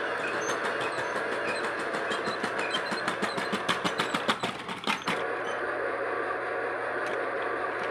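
Remote-control toy train running on its track: a steady motor hum with a fast, even clicking, several clicks a second, that stops about five seconds in while the hum goes on.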